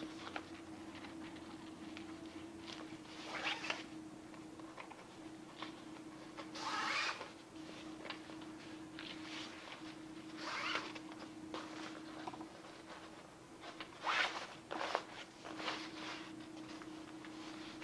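Bungee cord being pulled through the nylon tabs of a Dive Rite Classic EXP wing's air cell, with irregular swishes and rustles of cord and fabric every few seconds, over a faint steady hum.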